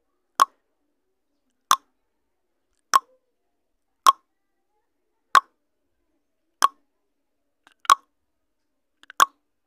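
Countdown-timer sound effect: eight short clicks evenly spaced about a second and a quarter apart, one for each number of the count.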